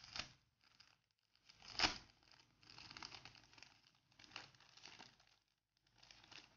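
Clear plastic sleeve of a sticker pack crinkling and crackling in irregular bursts as fingers pull it open. The sharpest crackle comes about two seconds in.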